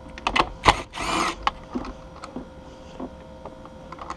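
Cordless drill fitted with a 13 mm socket, spinning in one short burst of about half a second, about a second in, to back out a center-console bolt. Scattered sharp clicks and knocks of the socket on the bolt come before and after it.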